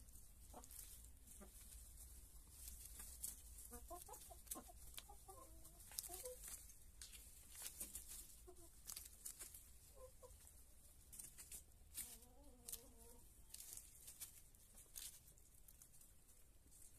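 Hens clucking faintly a few times, mostly around the middle, while they peck at lettuce on straw, with many light pecking and scratching clicks throughout.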